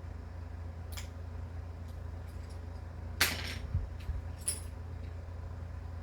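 A few light clicks and clinks of small hard parts being handled, the loudest about three seconds in, over a steady low hum.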